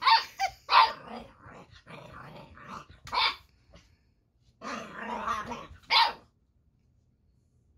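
An 8-week-old boxer puppy barking and growling at a robot toy in play: several sharp barks near the start, about three seconds in and at six seconds, with rough growling between them.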